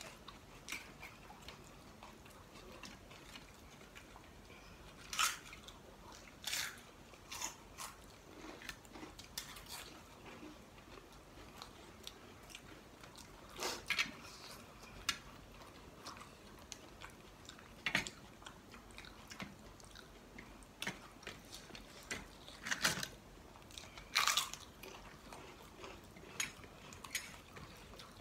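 Close-up eating sounds: crisp papad crunched in irregular sharp crackles, about a dozen spread out, with quieter chewing between them.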